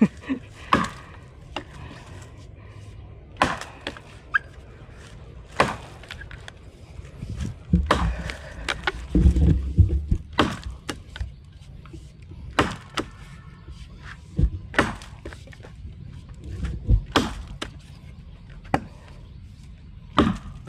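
Vintage felling axe chopping into a knot in a log: a run of irregular blows, about one a second, with a few heavier thuds about midway.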